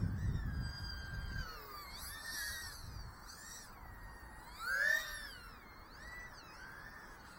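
Brushless motors of a 2-inch 2S micro FPV quadcopter whining, the pitch rising and falling again and again with throttle, with a louder swell up and back down about five seconds in.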